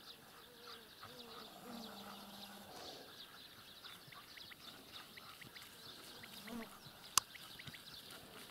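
Faint open-field ambience of small birds chirping throughout. A faint distant voice is heard for a couple of seconds near the start, and a single sharp click comes near the end.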